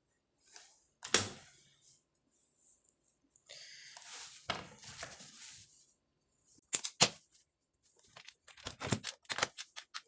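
Small clicks and rustling from handling a Cat 6 cable's wires and a clear plastic RJ45 connector: a sharp click about a second in, a stretch of rustling, then two sharp clicks and a quick run of clicks near the end.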